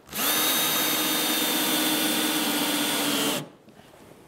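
Cordless drill spinning up quickly and running at a steady high speed for about three seconds, drilling through the plastic Hyfax runner into the sled hull, its pitch sagging slightly near the end before it stops.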